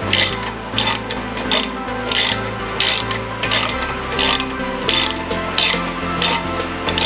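Socket ratchet wrench being worked on a bolt at the front brake caliper, its pawl clicking in short bursts on each return stroke, a little under a second apart, with faint background music under it.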